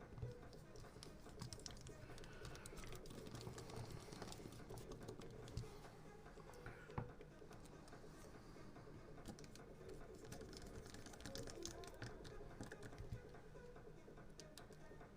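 Faint, scattered small clicks and taps of hand work on an airsoft gas magazine, its small gas-tank screws being fitted and adjusted.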